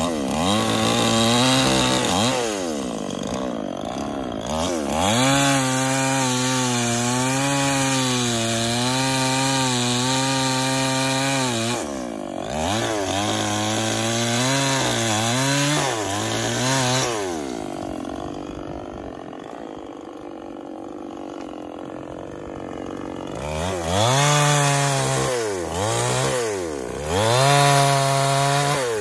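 Petrol chainsaw cutting through tree branches. The engine revs up and down between cuts and holds a steady pitch under load for several seconds at a time. There is a quieter stretch about two thirds of the way through.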